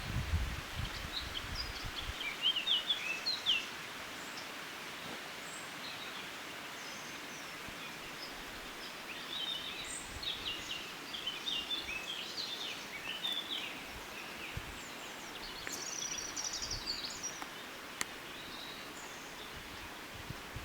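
Small songbirds chirping and singing in quick, scattered phrases over a steady outdoor hiss, busiest through the middle of the stretch. There is some low rumbling in the first couple of seconds.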